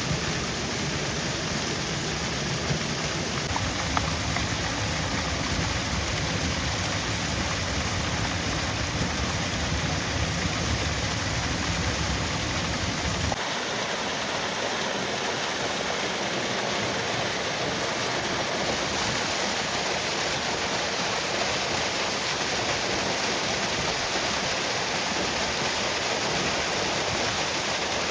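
Waterfall rushing steadily. A low rumble underneath cuts off abruptly about halfway through while the water noise carries on.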